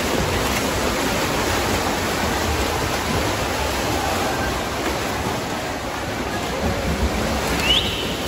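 Steady rushing noise of water in a swimming pool, with one brief rising high squeak near the end.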